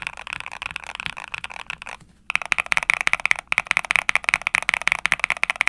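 Fast typing on a Yunzii C68 mechanical keyboard with Gateron Smoothie linear switches and PBT keycaps: a rapid stream of deep, clacky keystrokes. The typing pauses briefly about two seconds in, then picks up again.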